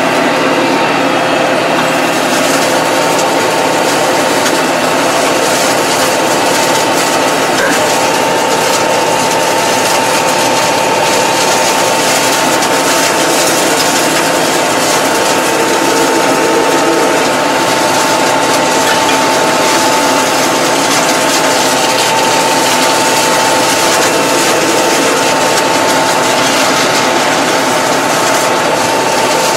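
Massey Ferguson 2220 tractor running steadily under load while mowing grass, heard from inside the cab, with a steady high whine over the engine noise.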